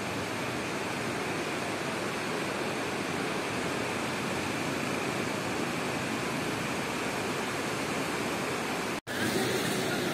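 Steady rushing of the flood-swollen Trishuli River's high, muddy water, broken by a brief dropout about nine seconds in.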